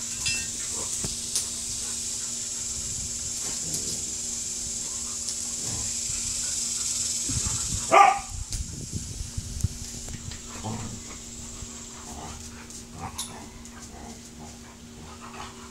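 Two dogs play-fighting, with scattered short barks and whimpers and one loud bark about eight seconds in.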